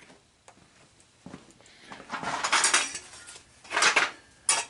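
Metal gas-stove parts clinking and rattling against each other as they are handled and pulled apart: a cluster of clatter about two seconds in, then two sharper clanks near the end.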